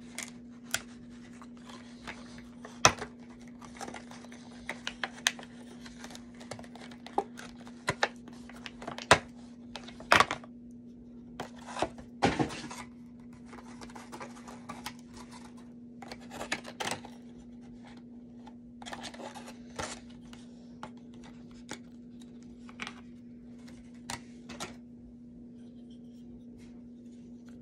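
Clear plastic blister packaging crinkling and clicking in irregular snaps as small plastic figure pieces are pried out of the tray and handled, over a steady low hum.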